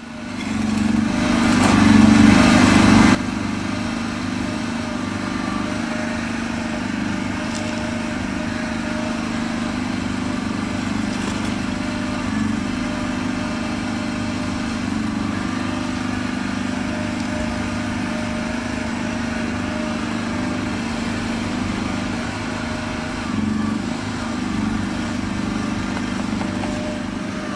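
Small engine of a Komatsu PC01 micro excavator running steadily while the machine digs. It is louder for the first three seconds, then drops suddenly to an even level.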